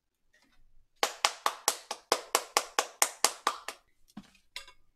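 A person clapping their hands in quick succession, about five claps a second for nearly three seconds, followed by a couple of softer knocks.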